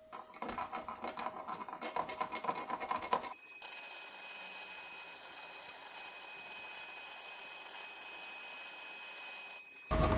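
Workshop tool noise in abrupt cuts: about three seconds of rapid scratching and rasping, then a sudden switch to about six seconds of steady hissing with a faint high whine, which stops sharply near the end.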